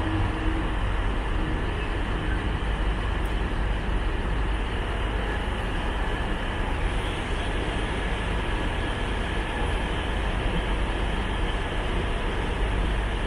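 Class 70 diesel freight locomotive with its GE PowerHaul V16 engine idling while standing in the station: a steady, unbroken low rumble.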